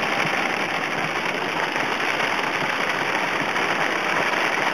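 Heavy downpour on a moving RV, heard from inside the cab: a steady, dense hiss of rain hitting the roof and windshield, mixed with road noise.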